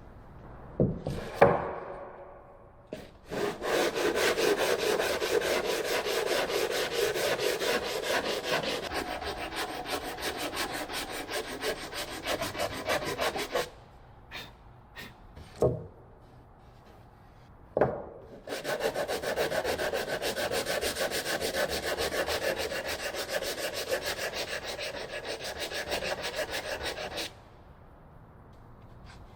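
Hand sanding block rubbed quickly back and forth over the edge of a plywood part, squaring it off, in two long spells with a few sharp knocks between them.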